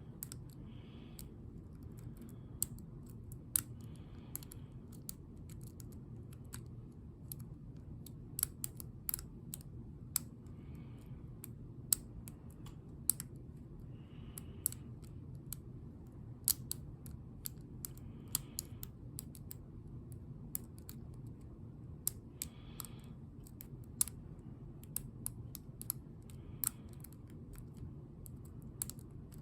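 Lock pick and tension wrench working the pins of a Ruko ASSA Abloy lock cylinder: irregular small metallic clicks and ticks as the pins are lifted and set, over a low steady hum.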